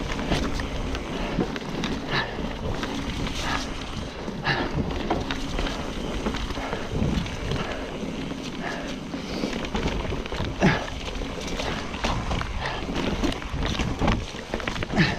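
Trek Fuel EX 9.8 29 mountain bike rolling down a wet dirt trail: steady wind noise on the camera microphone with tyre noise, and the bike rattling and knocking in irregular sharp hits over rough ground.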